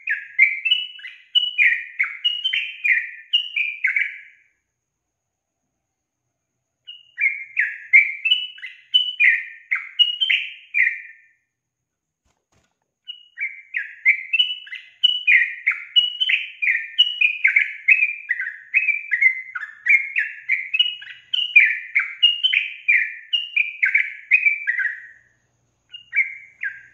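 Yellow-vented bulbul singing vigorously: three long runs of quick, bubbly, warbling notes separated by short pauses, then a brief burst near the end.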